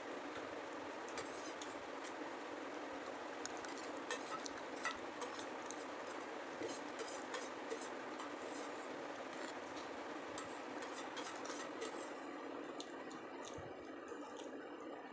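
A metal spoon clinking and scraping on a plate of noodles during eating: scattered small clicks, most of them in the middle stretch, over a steady background hiss.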